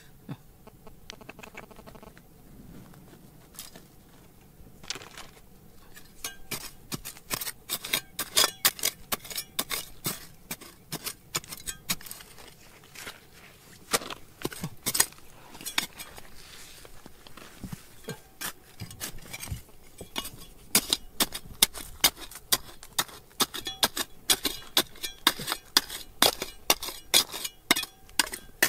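Repeated sharp clinks and taps of hard objects striking one another. They come irregularly at first, then settle into a steadier run of about two taps a second near the end.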